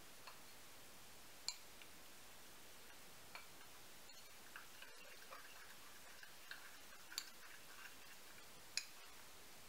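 Metal spoon stirring powdered sugar and lemon juice in a small glass bowl: quiet scraping with a few sharp clinks of the spoon against the glass, spread irregularly through the stirring.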